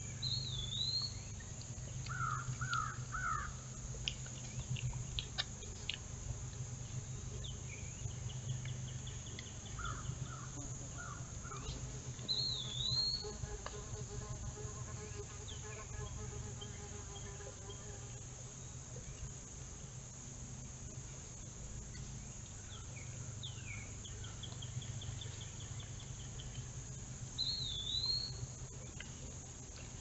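Woodland evening ambience: a steady chorus of insects with scattered bird calls over it, a short high call repeated three times (near the start, midway and near the end) and a few lower wavering notes, under a faint steady low hum.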